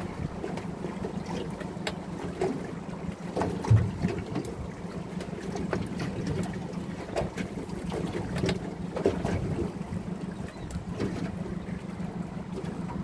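Small fishing boat at rest on open water: wind on the microphone and water against the hull over a steady low hum, with scattered light knocks and clicks of gear on deck and one heavier thump a little under four seconds in.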